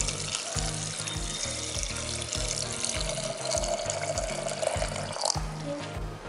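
Warm water pouring in a steady stream into a glass jar, stopping about five seconds in, over background music.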